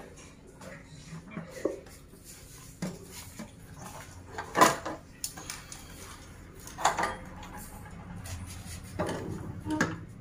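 Scattered knocks and clatter of a two-burner glass-top gas stove being handled and turned over on a tile floor, with the loudest knock about halfway through.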